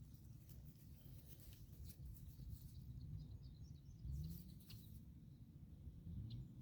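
Quiet outdoor ambience: a faint low rumble with a few faint clicks and distant bird chirps.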